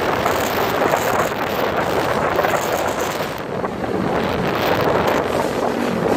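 Wind buffeting the microphone of a motorcycle riding at road speed, with the motorcycle's engine running steadily underneath.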